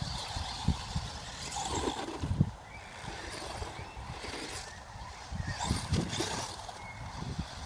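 Redcat Blackout RC monster truck with a VXL brushless system on a 3S LiPo, driving fast across grass. Its high motor whine and tyre noise swell and fade a few times as it speeds up and turns, over low, irregular rumbling.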